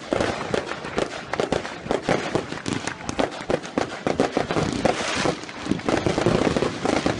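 Firecrackers going off in a dense, irregular string of rapid bangs and cracks.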